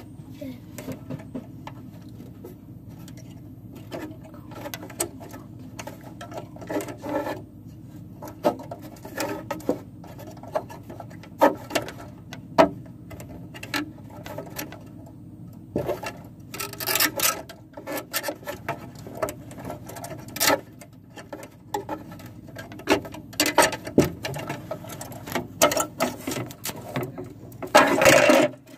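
Irregular clicks, taps and knocks of plastic toy horse-trailer parts being handled, over a steady low hum. The knocks come thicker in the second half, with a louder clatter near the end.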